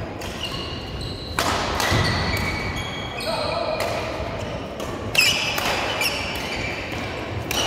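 Badminton doubles rally: a few sharp racket strikes on the shuttlecock and short high squeaks of shoes on the synthetic court mat, echoing in a large sports hall.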